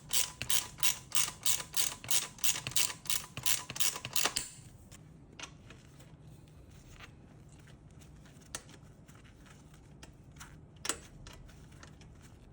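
Ratchet wrench clicking at about three clicks a second as it tightens the rear-axle nuts that hold the training wheels. The ratcheting stops about four and a half seconds in, leaving a few scattered light clicks and taps, one sharper near the end.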